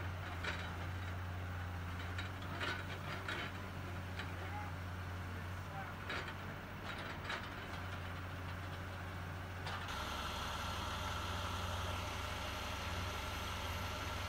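A log loader's diesel engine runs steadily while it sets a pole on the log trailer, with a few light knocks. About ten seconds in, the sound changes abruptly to a Peterbilt 389 log truck's diesel idling, with a steady high whine.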